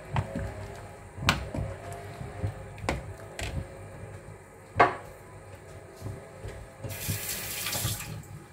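Metal spoon clinking against a small ceramic bowl and the pot as sugar and salt are tipped into a pot of soup, about five sharp clinks spread over several seconds, the loudest just after the middle. Near the end there is about a second of hiss like running water.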